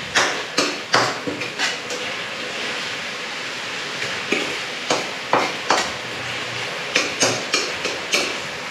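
A steel ladle stirring and scraping spiced onion-tomato masala frying in oil in a steel kadai. A steady sizzle runs underneath, broken by repeated sharp clinks of the ladle against the pan in irregular clusters. The masala is being fried until the oil separates.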